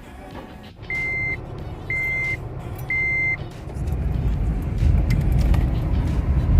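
Vehicle reversing alarm beeping three times, about a second apart, followed by the low rumble of a vehicle moving that grows louder.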